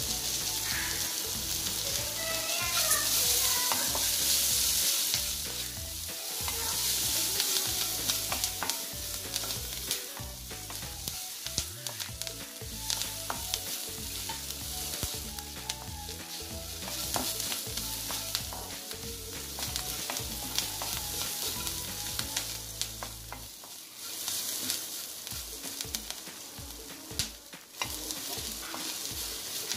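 Chopped onion with cumin, black pepper and fenugreek seeds sizzling in hot oil in a nonstick kadai, the onion already half softened. A wooden spatula stirs it, scraping and knocking against the pan many times.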